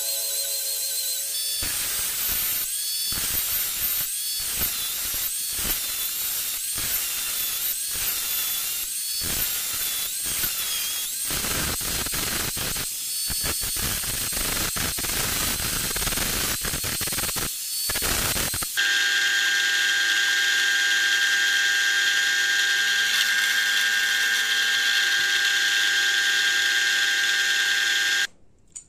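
Electric angle grinder working the steel of a knife blade cut from a motorcycle brake disc: its whine wavers up and down as the disc is pressed against the metal. About two-thirds of the way in, the sound turns to a steadier, louder whine with several fixed tones, which stops abruptly near the end.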